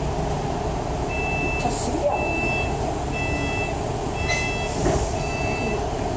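An electronic warning beeper sounding five high steady beeps, about one a second and each about half a second long, starting about a second in. Beneath them runs the steady low rumble of a bus.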